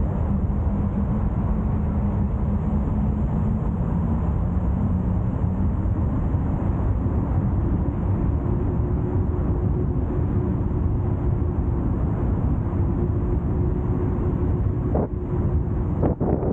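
Car driving along a road: steady engine and tyre noise, with a hum that moves up in pitch about halfway through. A few brief knocks come near the end.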